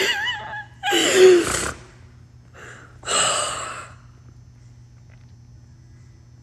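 A frightened woman crying: a high, shaky, wavering whimper, then a louder sob that falls in pitch, and a ragged gasping breath about three seconds in. A steady low hum of air conditioning runs underneath.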